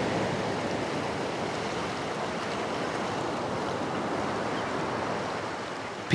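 Sea surf breaking and washing up a sandy beach: a steady rush of waves that eases off slowly.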